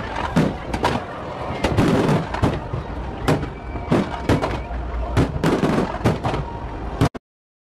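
Fireworks display: aerial shells bursting in a rapid run of bangs and crackles, one on top of another. The sound cuts off suddenly to silence about seven seconds in.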